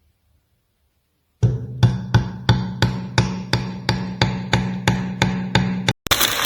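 An even series of sharp knocks, about three a second, over a steady low hum, starting about a second and a half in. Near the end it cuts off and gives way to a loud, dense noise.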